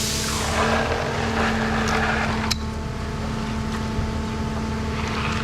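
Concrete mixer truck's diesel engine running steadily with a low hum. Over it, a rushing noise runs for the first two and a half seconds, then stops with a sharp click.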